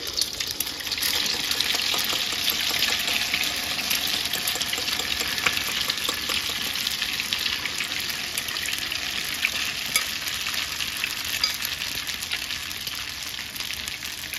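Beaten egg with glass noodles and minced pork sizzling and crackling steadily in plenty of hot oil in a wok as it is poured in, deep-frying into a puffy, crisp Thai-style omelette. A few sharp ticks stand out over the frying.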